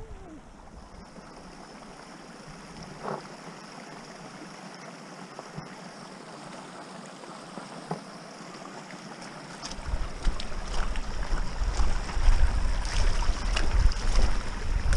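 Wind buffeting the camera microphone while an e-mountain bike rolls over rough, stony ground, with clicks and rattles from the bike over the stones. This starts about ten seconds in, after a quieter stretch of steady outdoor hiss.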